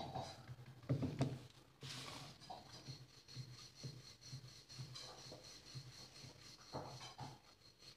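Hands rubbing and brushing over a flour-dusted wooden rolling board and a flattened disc of wheat dough, with a few soft knocks on the wood.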